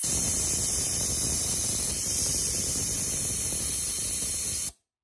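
Compressed air rushing out of a Kobalt Quiet Tech air compressor in a steady loud hiss after it has switched off at pressure, the tank bleeding back out, which the owner blames on a failed check valve. The hiss cuts off abruptly near the end.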